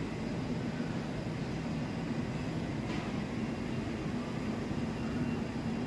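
Steady running noise of a vehicle in motion: a constant rumble with a low hum, and a faint click about three seconds in.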